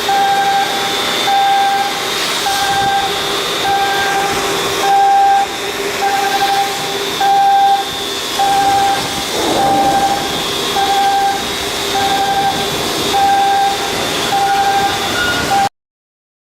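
A warning beeper sounding repeatedly, about one and a half beeps a second, over the steady hum and hiss of shipyard machinery. It cuts off suddenly just before the end.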